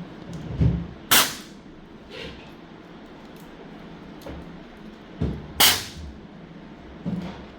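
Two sharp puffs of air from a small hand air blower, about four and a half seconds apart, each just after a dull knock, blowing dust out of a PS5 DualSense controller's thumbstick module.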